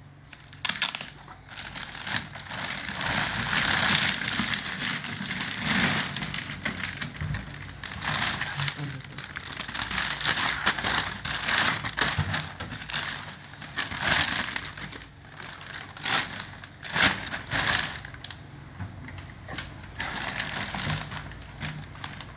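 Rustling and crackling from the handling of packaging or parts, with many small clicks and knocks. The rustle swells and fades every second or two.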